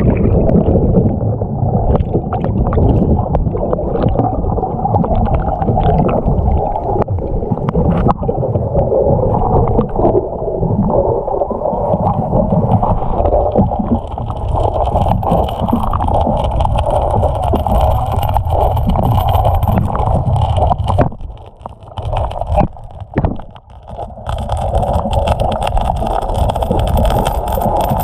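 Fast-moving floodwater rushing and gurgling around a kayak, a steady muffled rumble with scattered knocks, dipping briefly a little past two-thirds through.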